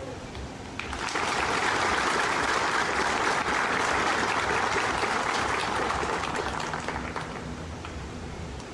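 Crowd applauding: the clapping breaks out about a second in, holds steady for several seconds and fades away near the end.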